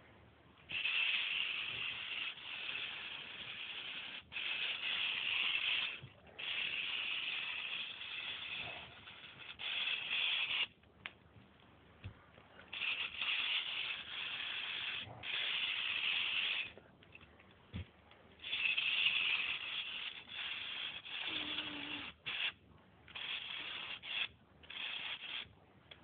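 Small electric motor and plastic gears of a Lego four-wheel-drive vehicle whirring in about a dozen bursts of one to three seconds. Each burst starts and stops abruptly as the motor is switched on and off.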